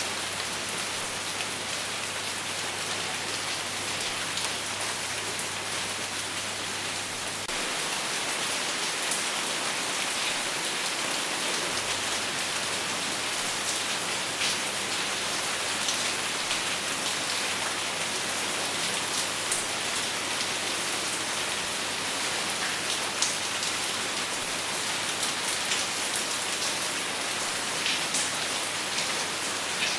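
Steady rain falling, with scattered individual drops tapping; no thunder. The sound gets slightly louder about seven seconds in.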